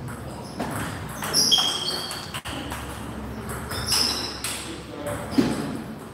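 Table tennis rally: the plastic ball clicking and pinging off the bats and the table, a string of sharp knocks at irregular intervals.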